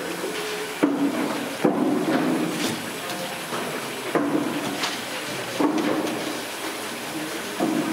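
Chicken pieces deep-frying in woks of hot oil, a steady sizzle, with a metal ladle knocking against the wok about five times.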